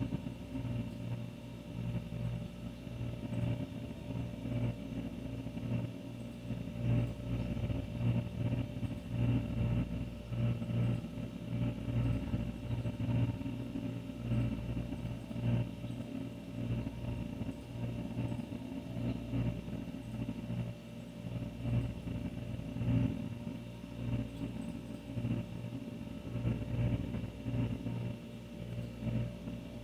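An old refrigerator running: the steady low hum of its compressor, wavering slightly in loudness.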